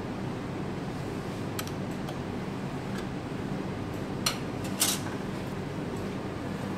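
Steady whir and low hum of a laminar-flow cabinet's blower fan, with a few light clicks of labware being handled; the two sharpest clicks come about half a second apart past the middle.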